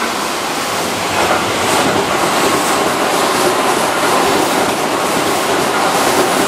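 Keihan 2600 series electric commuter train running past at close range: a steady, loud noise of its wheels on the rails.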